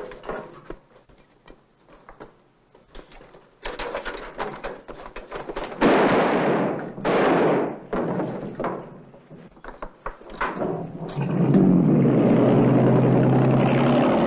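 Scattered knocks and scuffling, then two loud bursts of noise about six and seven seconds in. About eleven seconds in, a motorboat engine starts and runs steadily.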